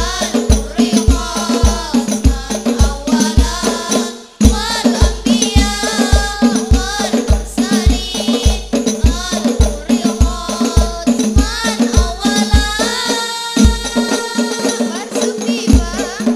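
Girls' group singing a devotional song into microphones to rebana frame drums, with a deep drum beat about twice a second and jingling percussion. The music breaks off briefly about four seconds in, then carries on.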